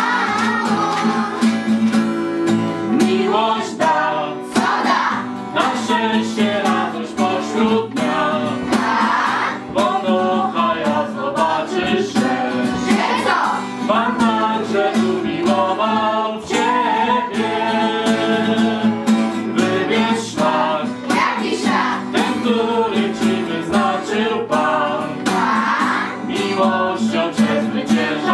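Children's and youth choir singing a worship song, accompanied by a strummed acoustic guitar.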